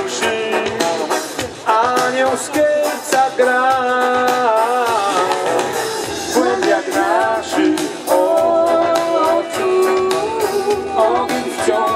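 Live band playing an instrumental passage at full volume: drum kit keeping a steady beat under electric guitar and a gliding melodic lead line.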